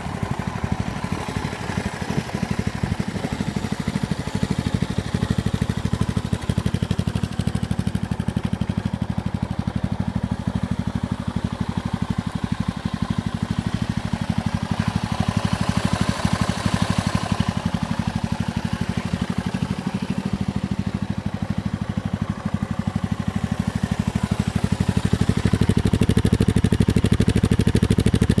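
Yamaha TW200's single-cylinder four-stroke engine idling steadily with an even beat. It grows louder near the end as it is heard close to the exhaust outlet.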